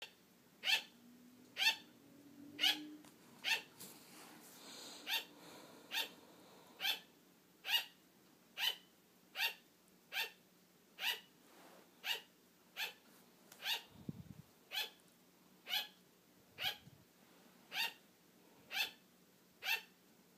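Sugar glider barking for attention: short, sharp yaps repeated steadily about once a second.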